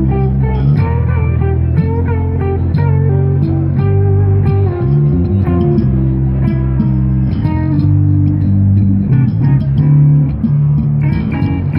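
Amplified electric guitar playing a lead line over an electric bass, both plucked and sustained, with some guitar notes bent in pitch.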